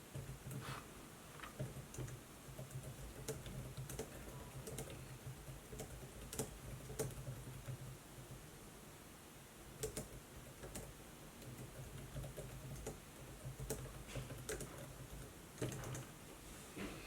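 Typing on a laptop keyboard: quick, irregular key clicks in runs, with a short pause about halfway through.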